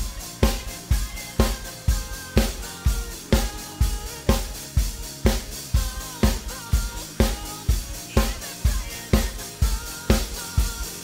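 Drum kit playing a steady, simple rock beat of bass drum and snare at about two hits a second, along with the song's backing track.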